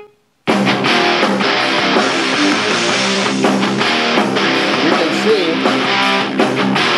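Guitar music played through a small AOMAIS Bluetooth speaker. It is silent for the first half second, then a new track starts, as a long press on the speaker's button skips to the next track.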